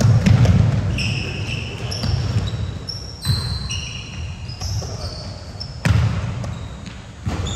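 Basketball game play on a gym floor: the ball bouncing with sharp thuds, and a run of short, high sneaker squeaks in the middle.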